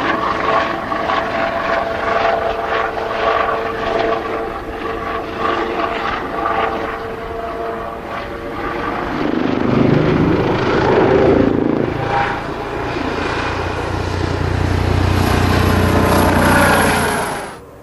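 Kawasaki OH-1 scout helicopter flying past: a whine of several steady tones over rotor noise, the low rotor sound swelling louder in the second half as it passes close overhead, then cutting off suddenly near the end.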